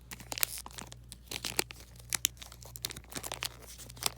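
Trading card pack wrapper being worked open by hand: irregular crinkling and tearing with many sharp crackles.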